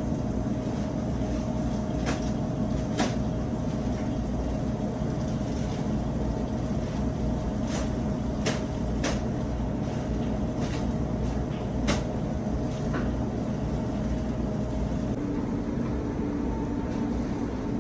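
Steady low hum and rumble of kitchen machinery, with a faint steady tone that fades out about three-quarters of the way through. About eight short sharp clicks and knocks are scattered over it, the loudest about two-thirds of the way in.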